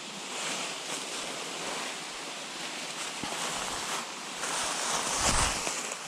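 Steady rushing outdoor noise, with a low rumble of wind on the microphone about five seconds in.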